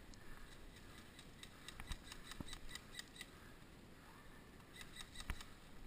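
Faint rapid clicks of distant airsoft gunfire, in two bursts: one starting about a second and a half in, another near the end.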